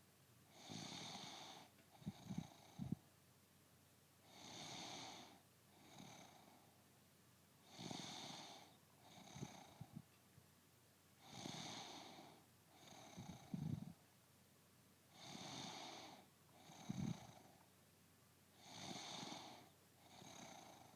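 A woman snoring in her sleep: about six breath cycles, one every three and a half seconds or so. Each is a long airy breath, then a shorter one with a low rattling flutter.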